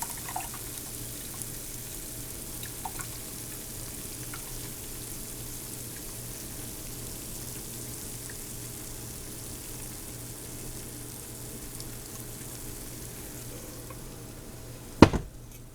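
Rendering chicken fat sizzling, a steady soft hiss with a few faint crackles. Near the end comes one sharp knock.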